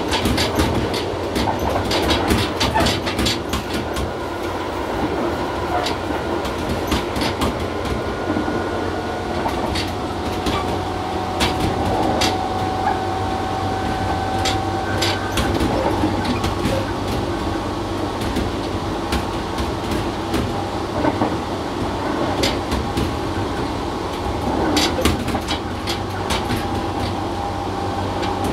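Tobu 6050 series electric train, a resistor-controlled motor car with TM-63B traction motors, running at speed, heard from inside the cab. There is a steady rumble of wheels and running gear, with frequent clicks of the wheels over rail joints and a faint steady whine.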